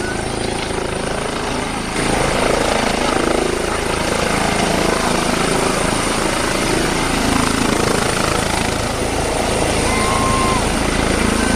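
Eurocopter EC135 police helicopter hovering low: the steady rush of its twin turbines and the rapid beat of the main rotor, growing louder about two seconds in and then holding steady.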